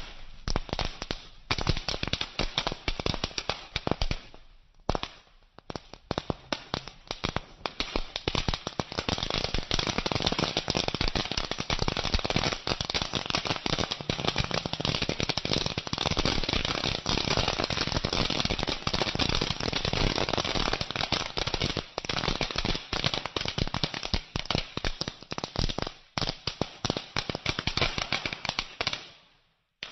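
A pile of foil-wrapped 'dinosaur egg' crackling firecrackers going off together: a dense, rapid crackle of many small pops. The crackle thins briefly about five seconds in, then runs on thick and cuts off suddenly near the end.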